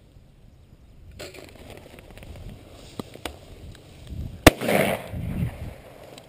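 A single sharp bang about four and a half seconds in, the loudest sound, followed by about a second of rushing, fluttering noise. Before it come low rustling and a couple of light clicks.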